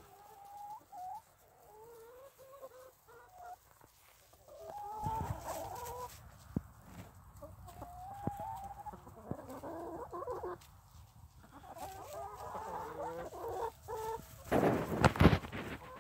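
Backyard hens clucking and chattering in a steady run of short, wavering calls. A louder rustling bump close to the microphone comes near the end.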